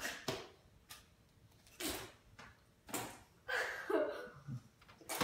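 A child giggling in short, scattered bursts with breathy puffs between them.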